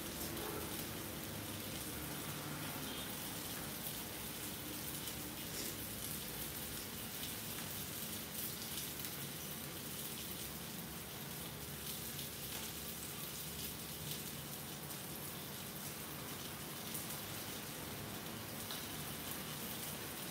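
Salmon steak frying in oil in a cast-iron skillet: a steady sizzle with small irregular pops and crackles of spitting oil.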